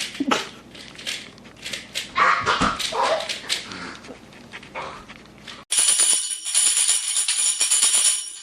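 A dog barking and yelping in short, irregular bursts. About two-thirds of the way through, it is cut off abruptly by music with a bright, jingling tambourine.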